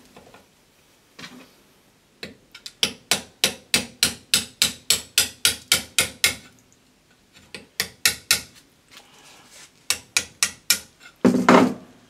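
Hammer striking a flat steel bar to drive the tightly packed secondary coil out of a microwave oven transformer's core: runs of sharp whacks, about three a second, with short pauses between the runs.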